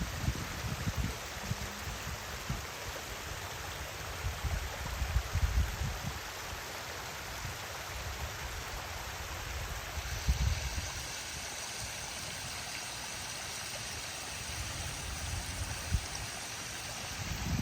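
Water rushing steadily over a small waterfall. Irregular low rumbles come and go over it, and about halfway through the rush turns brighter and hissier.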